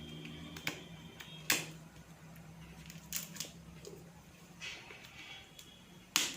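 Sharp plastic clicks and taps from handling a plastic face wash tube and its packaging, about six in all, the loudest near the end, over a faint steady hum.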